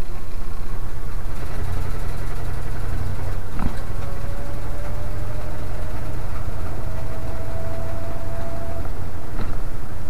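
1982 GMC C30 pickup truck driving at low speed, heard from inside the cab: a steady low engine rumble with a faint whine that rises slowly in pitch as it picks up speed. Two short knocks, about four and nine seconds in.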